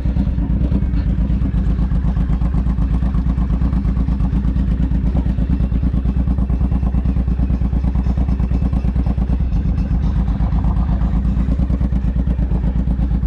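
Vehicle engine running steadily at low speed, an even low pulsing throb that holds the same pace throughout.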